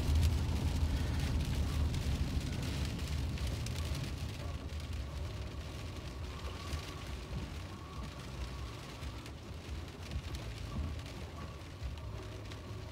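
Heavy rain drumming on a car's roof and windshield, heard from inside the cabin over the low steady rumble of the moving car, growing a little quieter over the first half.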